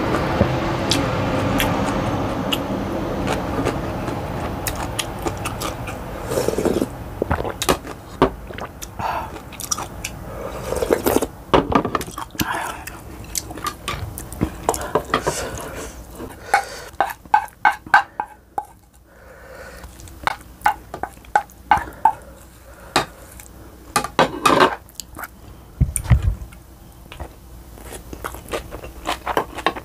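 Close-miked eating sounds: a long noisy slurp of ramen noodles for the first several seconds, then wet chewing and lip smacks mixed with sharp clicks of chopsticks and a spoon against bowls.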